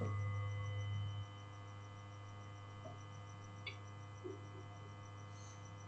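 Steady low electrical mains hum, louder for about the first second and then dropping to a lower steady level, with a few faint clicks.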